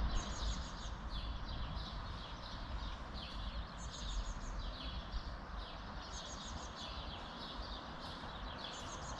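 Small birds chirping over and over, with short rapid trills every few seconds, above a steady low rumble.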